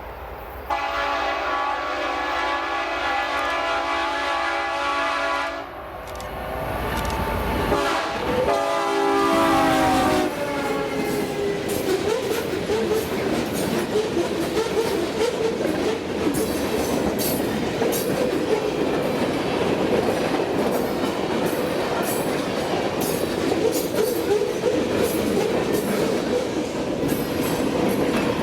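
Diesel freight locomotive's multi-chime air horn sounding a long blast, then a second blast that drops in pitch as the locomotive passes. The freight cars then roll by, wheels clicking over the rail joints.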